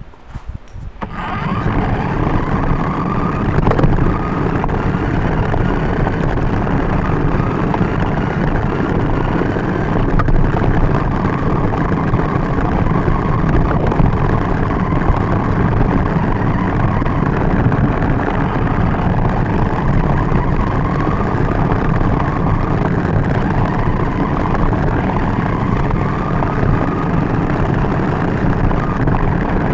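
RC car driving over pavement, heard from on board: a steady rumble of its wheels on the road with a motor whine that rises and falls in pitch with its speed. It starts about a second in.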